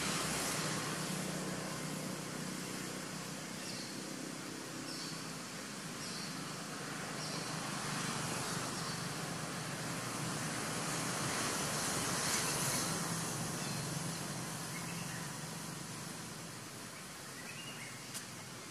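Steady outdoor background noise with a faint low hum, swelling around the middle, and a short high chirp repeating about once a second for a few seconds near the start; a small click near the end.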